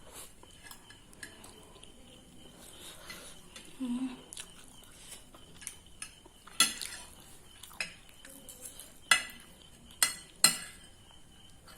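Cutlery clinking against a plate while noodles are eaten, with about five sharp, loud clinks in the second half.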